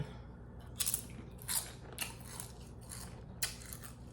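A person chewing a mouthful of spinach turkey wrap, with a short crisp mouth sound about every half second.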